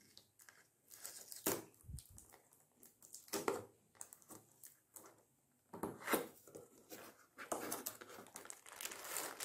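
Cardboard box being torn open along its pull-tab tear strip: a few short tearing rips, then denser rustling of cardboard and packaging near the end as the box end is opened.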